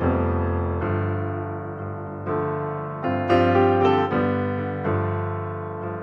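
Background piano music: notes and chords struck about every second, each ringing and slowly fading.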